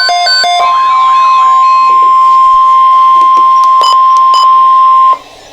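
NOAA Weather Radio 1050 Hz warning alarm tone: a single steady, loud beep held for about four and a half seconds, then cut off abruptly, leaving faint static hiss. Two short crackles sound near its end, and the first half-second holds the tail of a pulsing electronic tone pattern.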